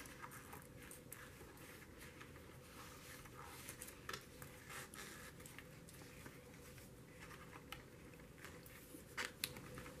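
Near silence with faint rustling and a few soft ticks from hands handling thin elastic cord and a card journal cover.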